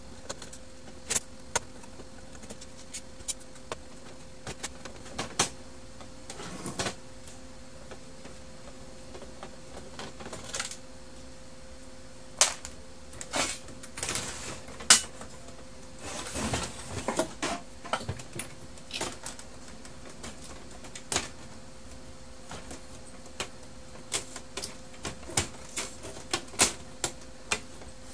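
Irregular clicks, taps and plastic clatter of a laser printer being taken apart by hand: a screwdriver working at its screws and plastic housing parts and circuit boards being handled. A faint steady hum runs underneath.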